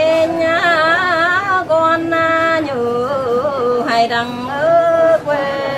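A woman singing a traditional Mường folk song (hát Mường). She holds long notes ornamented with wavering slides, and the melody drops lower about three seconds in.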